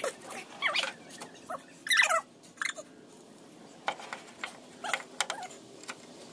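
Several short animal cries, each bending up and down in pitch, the loudest about two seconds in, with a few sharp clicks between them.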